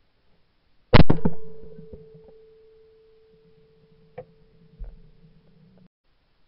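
A shotgun shot about a second in, with a second sharp report close behind it. A steady ringing tone then holds for several seconds, with a couple of faint knocks, and cuts off abruptly.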